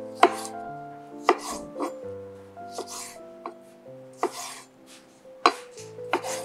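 Knife chopping on a cutting board, sharp strikes at uneven intervals roughly once a second, over background music.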